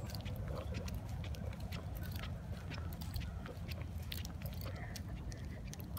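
Panting and quick footsteps on asphalt, with handling rustle and a steady low wind rumble on a hand-held phone microphone.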